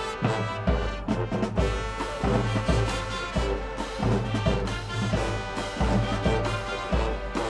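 High school marching band playing a pop tune: full brass section over a steady, heavy drum beat.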